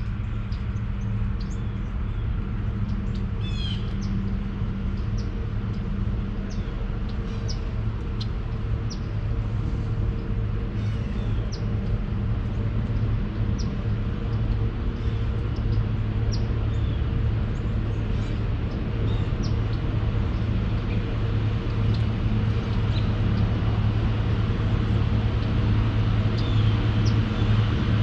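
Steady low hum of an engine running, growing a little louder near the end, with birds chirping repeatedly over it.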